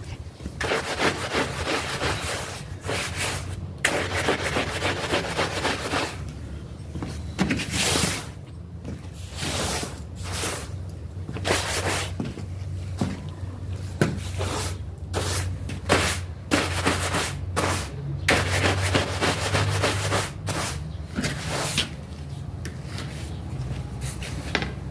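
Metal squeegee scraper pushed across a soaked, muddy rug in repeated strokes of a second or two, scraping dirty foam and water out of the pile, with a low steady hum underneath.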